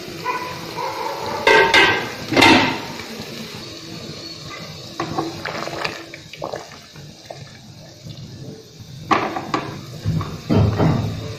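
Sugar syrup boiling hard in an aluminium pot with chhena balls (rasgulla) cooking in it, a steady bubbling. A few clatters of metal pot or utensil break in, the loudest about two seconds in and again near the end.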